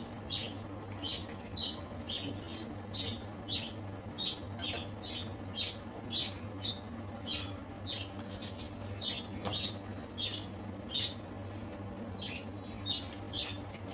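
Pencil scratching on paper in short, quick strokes, about two a second, over a low steady hum.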